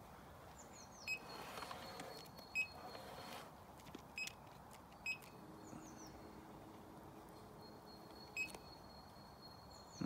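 Short beeps from an electric trolling motor's wireless remote, about five of them spaced a second or more apart, with faint bird chirps behind. A faint steady hum runs for a few seconds in the middle.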